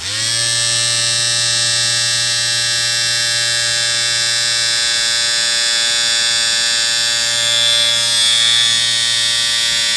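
A steady, harsh buzzing tone with many overtones that cuts in abruptly and holds unchanged, turning a little brighter near the end.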